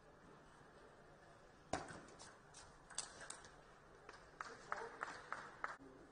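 Table tennis ball clicking off rackets and the table in a rally: a sharp click about two seconds in, a few more soon after, then a quicker run of alternating clicks roughly three a second in the second half. Faint hall room tone between the hits.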